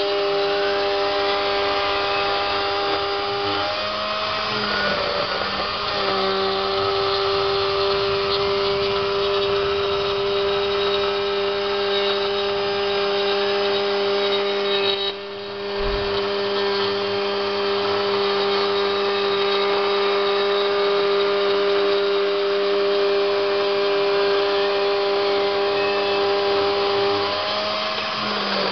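Homemade CNC router milling PVC: the spindle runs with a steady pitched whine. The pitch shifts briefly about four seconds in and again near the end, and the level drops for a moment about halfway.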